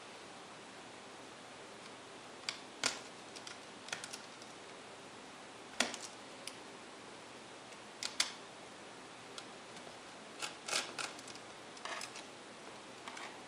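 Scattered small plastic clicks and taps as a plastic pry tool pops the antenna connectors off a netbook's Mini-PCIe wireless LAN card and the card is worked loose, over a steady faint hiss.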